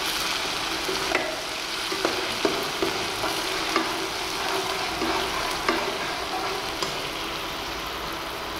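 Chopped onions, curry leaves and ground shallot paste sizzling in oil in a nonstick kadai, sautéing. A perforated steel ladle stirs them, clinking and scraping against the pan irregularly, about once a second.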